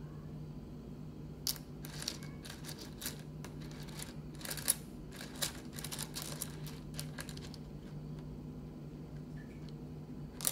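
Small pieces of rough opal clicking and clinking against each other as fingers pick through them: a quick, irregular run of light clicks from about a second and a half in until a couple of seconds before the end, then one more click at the very end, over a low steady hum.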